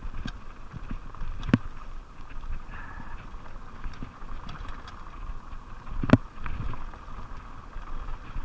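Fuji Beartooth 27.5+ mountain bike rolling fast downhill on a dirt trail: steady tyre noise over dirt and gravel with the bike rattling, and two sharp clacks, about one and a half seconds in and about six seconds in.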